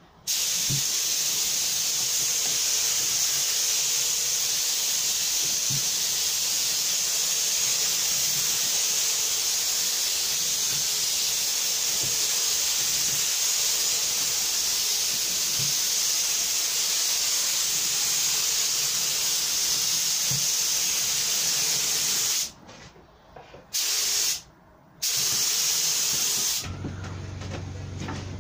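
Compressed-air gravity-feed spray gun hissing steadily as it sprays thick primer through a 2.5 mm nozzle. The hiss cuts out twice briefly as the trigger is let off. Near the end it drops to a quieter hiss with a low hum under it.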